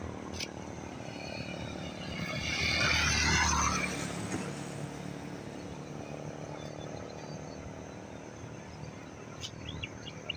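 A motor vehicle passes close by, swelling and then fading over about three seconds, over a steady outdoor hiss.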